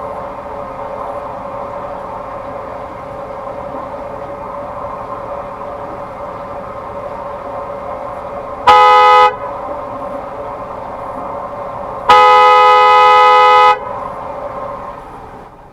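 Boat horn sounding two blasts, a short one and then a longer one about three seconds later, over a steady drone. They are a warning to an oncoming boat keeping to the wrong side of the canal.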